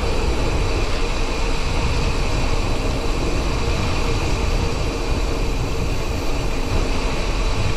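Steady rushing noise of wind and road picked up by a camera on a moving bicycle, heaviest in the low range.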